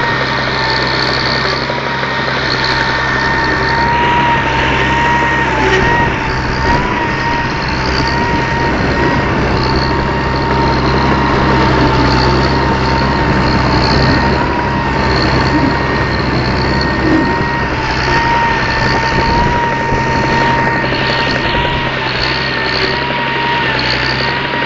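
Fiat 451C tractor's diesel engine running steadily under load while pulling a Kongskilde cultivator through tilled soil, with a steady high whine over the engine note.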